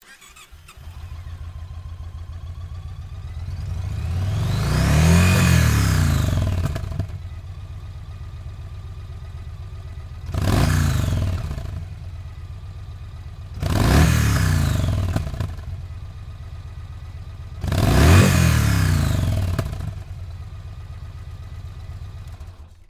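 Yamaha Stratoliner's air-cooled V-twin motorcycle engine starting and settling into a steady idle. It is then revved four times, each time dropping back to idle. The first rev is a slow rise and fall; the next three are quicker, sharper throttle blips.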